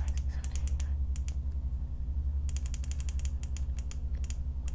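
Irregular run of sharp clicks, a few per second with a lull of about a second midway, from the adjustable hanger of a grow light as the light is lowered. A steady low hum runs underneath.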